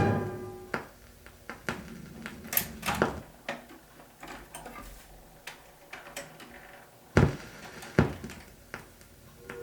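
Surface noise of a 78 rpm record between selections: scattered clicks and pops over a faint hiss. The louder pops come about three seconds in and twice near the end.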